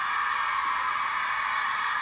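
Studio audience applauding and cheering, a steady dense wash of clapping and crowd noise.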